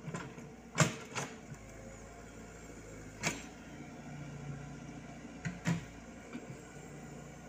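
Komatsu PC78US mini excavator's diesel engine running steadily, with five sharp knocks from the working machine, the loudest about a second in and a close pair near the end.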